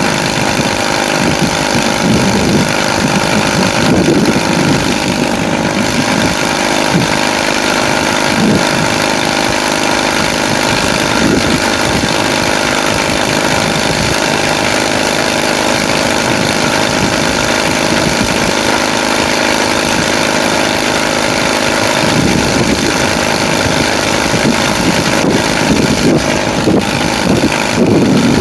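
An engine idling steadily, with its running swelling slightly a few times.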